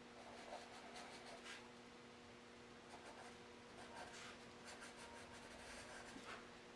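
Pencil sketching on drawing paper: faint, short scratchy strokes coming every second or so, over a faint steady hum.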